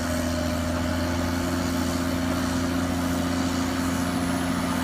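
Heavy vehicle engine idling steadily with a low hum, a dubbed-in engine sound effect for a toy road roller.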